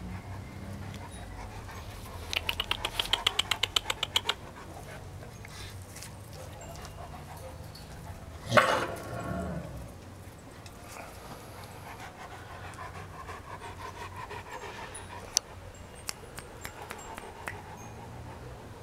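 Great Dane panting rapidly for about two seconds, around seven pants a second, then one loud bark about eight and a half seconds in. A few faint clicks follow near the end.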